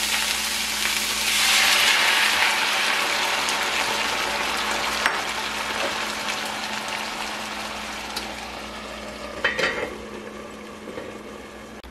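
Green beans, peppers and onions sizzling in a cast-iron skillet. Nearly ten seconds in, a metal lid clinks down onto the pan with a short ring, and the sizzle is quieter after it.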